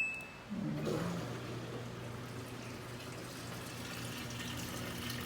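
Samsung automatic washing machine starting a wash-only cycle at maximum water: the last of a short beep at the very start, then water running into the tub over a steady low hum.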